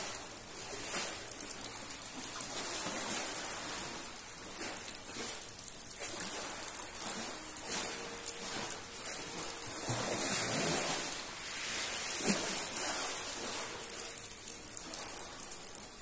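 Steady hiss of rain, with small waves washing over the pebble shore and swelling every few seconds, most strongly about two-thirds of the way through.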